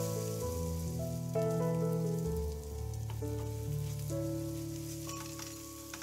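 Shredded zucchini and vegetable pancake batter sizzling and crackling in hot oil in a frying pan, just after it has gone into the preheated pan. Instrumental background music plays throughout.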